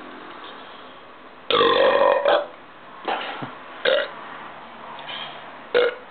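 A man's long, loud burp about a second and a half in, then a few shorter burps, brought up after gulping down carbonated Diet Pepsi.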